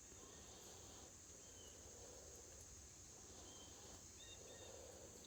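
Faint outdoor ambience: a steady high-pitched insect drone, like crickets, with a few short faint chirps.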